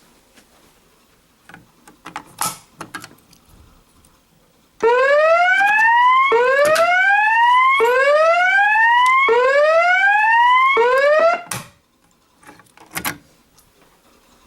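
Fire alarm speaker sounding a whoop tone: a loud rising sweep repeated about every one and a half seconds, four full times and part of a fifth, then cut off suddenly. A few clicks and knocks come before and after it.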